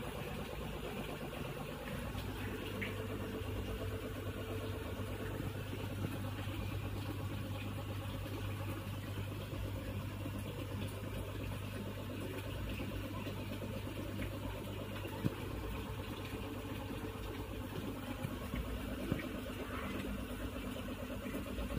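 Steady low mechanical hum, like a small motor running, over a constant hiss, growing a little stronger about two seconds in, with a few faint clicks.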